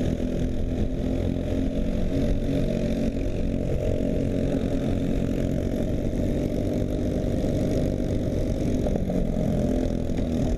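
Briggs & Stratton LO206 single-cylinder four-stroke kart engine running at a fairly steady pitch.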